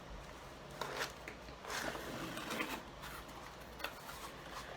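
A subscription box being opened and its packaging handled: a few light taps and clicks, with a stretch of soft rustling in the middle.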